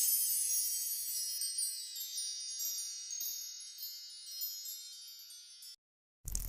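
Shimmering, sparkly chime sound effect, many high tinkling tones ringing together and fading out slowly over nearly six seconds. A short noisy burst cuts in at the very end.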